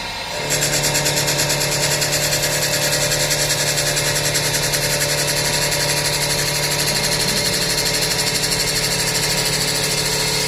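CNC wood lathe running: a steady machine hum with a strong hiss that pulses several times a second, starting about half a second in.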